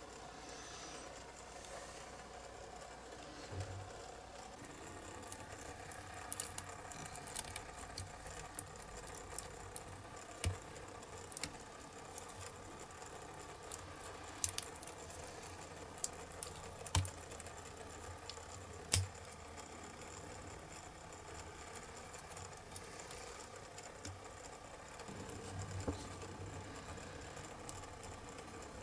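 Small scattered clicks and taps from hands working a two-part silicone rubber mold, over a faint steady hum. Most of the clicks come in the middle stretch, with a few more near the end.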